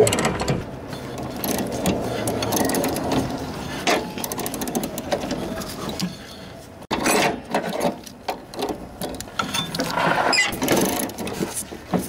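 Socket ratchet wrench clicking in rapid strokes as it spins off the loosened nut on a riding mower's deck belt pulley, with a brief pause about seven seconds in.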